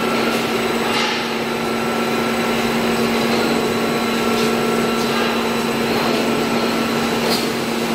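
PVC pipe extrusion line running: a steady machine hum over a continuous hiss, with a few faint clicks.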